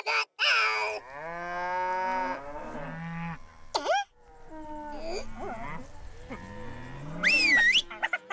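A cow mooing: a long, drawn-out moo followed by several shorter, lower moos. Near the end comes a brief, loud, high squeaky call that rises and falls.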